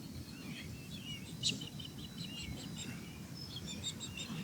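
Birds chirping, with many short, high calls scattered throughout, over a steady low rumble of background noise.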